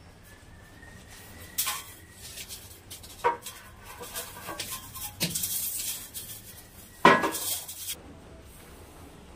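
Plastic water pipes and fittings being handled and set into a wall channel: a few sharp clattering knocks with a scraping, rattling stretch between, the loudest knock about seven seconds in.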